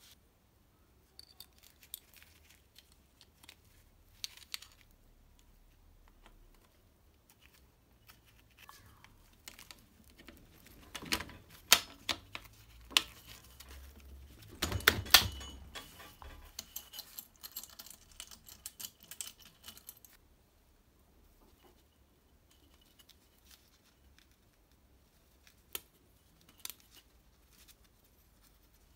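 Small metal engine parts and hand tools clicking, clinking and knocking during hand reassembly of a scooter engine. The clicks come irregularly, with a busier stretch in the middle, where two sharper knocks are the loudest, then some seconds of quiet before a few more clicks near the end.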